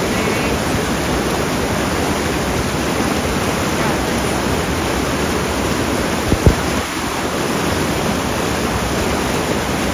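Fast, shallow river water rushing over rocks in rapids, a steady, even rush of water. Two brief low thumps come a little past the middle.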